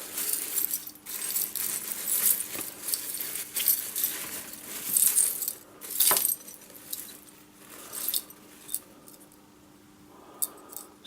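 Broken bulb glass and the bulb's metal base clinking and scraping in many small, irregular clicks and rattles as the leftover pieces are picked out, with a faint steady hum underneath.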